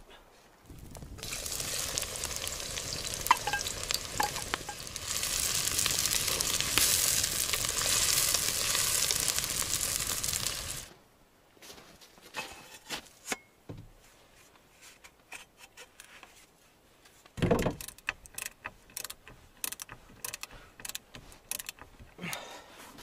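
A loud, steady hiss for about ten seconds that cuts off abruptly, followed by scattered clicks, knocks and scrapes of a steel shovel blade being handled and filed on a plank workbench.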